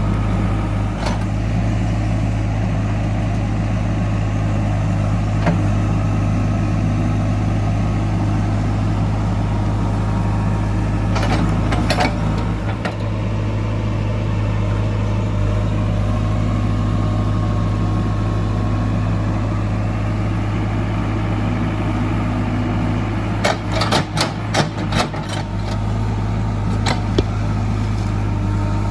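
JCB 3DX backhoe loader's diesel engine running steadily with a low hum, broken by sharp knocks: a couple around the middle and a quick cluster of them a few seconds before the end.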